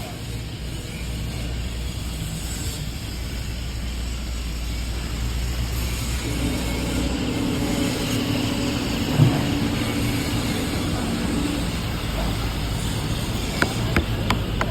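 Machinery running steadily with a low hum. A steadier drone joins about six seconds in and fades out a few seconds later, with a single thump in the middle and a few sharp clicks near the end.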